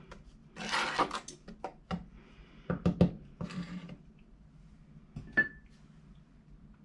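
A spoon scraping and knocking in a heavy saucepan of fudge mixture being stirred, in several short bursts, then one sharp clink about five seconds in. A steady low hum runs underneath.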